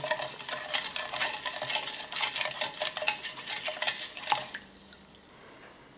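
A spoon stirring coarse, crystallised sport-drink powder into water in a container, with rapid clinking and scraping. The stirring stops after about four and a half seconds.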